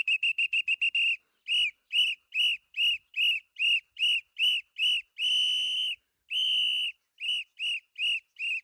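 Whistle blown as a recall signal for a flying pet parrot: a rapid trill of very short blasts for about the first second, then short blasts about two and a half a second, with two longer blasts a little past the middle.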